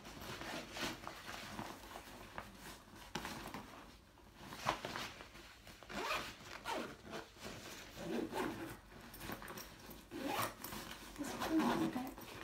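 Zipper on a blue Adidas backpack being pulled several times, with rustling as things are packed back into its pockets.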